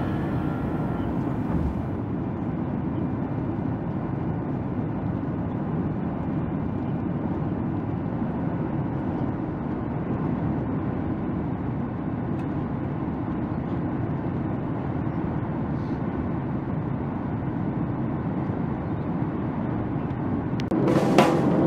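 Steady cabin noise inside a jet airliner climbing after takeoff: an even, low rumble of engines and airflow heard through the fuselage. Music comes in about a second before the end.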